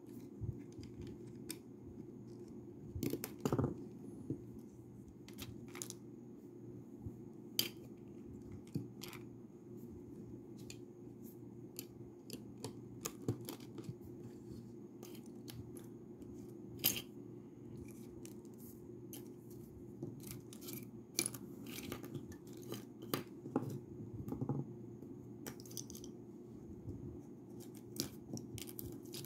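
Lego bricks being handled and pressed together: irregular sharp plastic clicks and light rustling, over a steady low hum.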